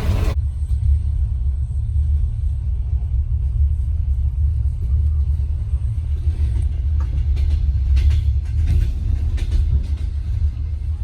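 Steady low rumble of a moving passenger train heard from inside the carriage, with a few faint clicks and knocks about two-thirds of the way through.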